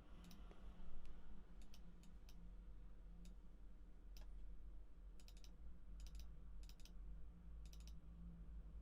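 Scattered sharp clicks at a computer: single clicks early on, then several quick pairs of clicks later, over a low steady hum.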